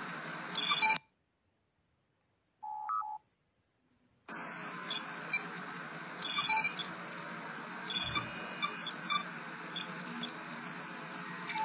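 Star Trek LCARS computer ambience: a steady background noise dotted with short chirping beeps, which cuts out about a second in. In the gap a single short LCARS interface beep sounds, and the ambience starts again at about four seconds.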